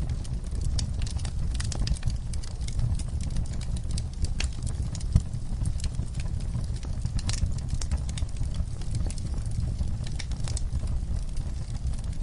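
Wood fire burning in a fireplace, crackling with many irregular sharp pops and snaps over a low steady rumble of the flames. One louder pop comes about five seconds in.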